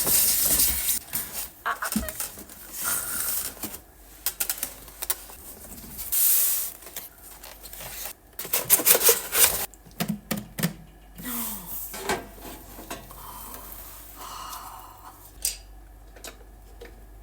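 Handling sounds of a gift being unboxed: packaging rustling and crinkling, with scattered clicks, taps and light clatters as items are handled.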